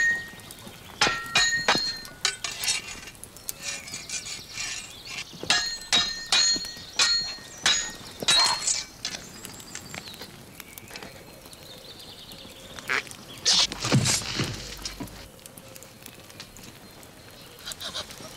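Metal swords clashing in a fight: a rapid series of ringing clangs for the first nine seconds or so. Then it goes quieter, with one loud, sudden sound about fourteen seconds in.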